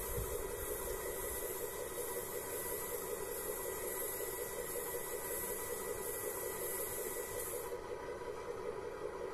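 Radio-controlled 8x8 model tow truck running as its crane boom moves: a steady mechanical hum with a high hiss over it. The hiss cuts off near the end.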